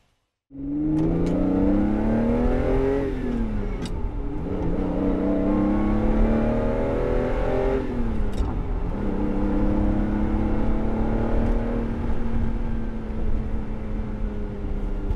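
1994 Ferrari 512TR's flat-12 engine accelerating through the gears, heard from inside the cabin. The engine note climbs, drops at an upshift about three and a half seconds in, climbs again, drops at a second upshift about eight seconds in, then holds a steady cruise.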